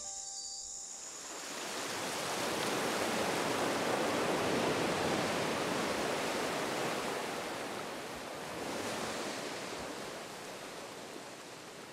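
Ocean surf washing in: a long swell of rushing noise that builds a second or two in, peaks and ebbs, then a smaller second swell near the end.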